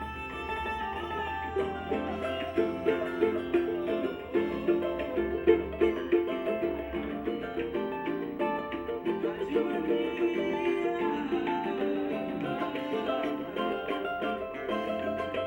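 Pagode music led by a cavaquinho playing quick plucked and strummed notes in a lively rhythm, with no singing.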